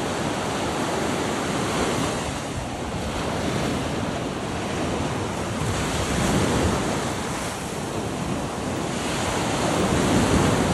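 Surf washing onto the shore, swelling louder about every four seconds, with wind buffeting the microphone.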